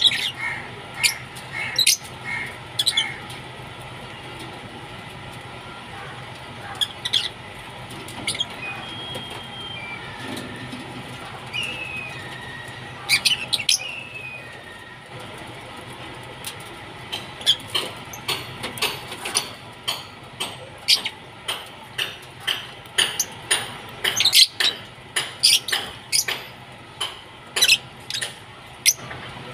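A flock of Fischer's lovebirds chirping: short, sharp, high calls, coming about once a second or faster in the second half, with a few thin whistled notes in the middle.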